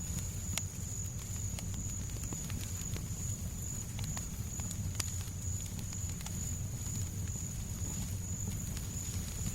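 Fireplace crackling, with scattered sharp pops and clicks over a steady low rumble of white noise, and a steady high tone beneath.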